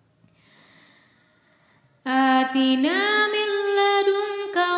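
After a short near-silent pause, about two seconds in, a solo voice resumes Quran recitation in the melodic chanted style, holding long drawn-out notes that glide upward in pitch.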